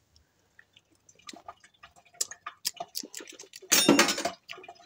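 A metal spoon clinks and taps against a stainless steel mixing bowl of tomato sauce in scattered small clicks. About four seconds in there is a short, loud slurp as the sauce is tasted off the spoon.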